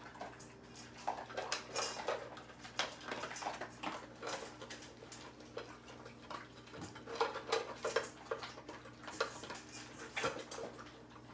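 Dogs eating breakfast from their food bowls: a run of irregular clicks and clinks of eating and bowl contact.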